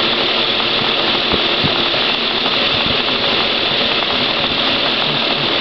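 Steady whirring of a small electric motor.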